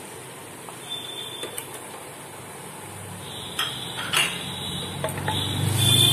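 Mutton pieces frying in oil and onions in a pressure cooker, sizzling gently, then a spatula stirring them and knocking against the pot several times in the second half. The sizzle grows louder near the end as the meat is turned over.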